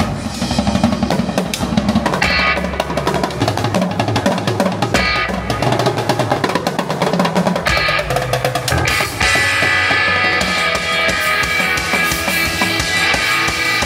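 Live drum kit played loud over backing music, with fast snare and bass-drum hits and rolls. About nine seconds in the drumming thins and steadier rock-style music carries on.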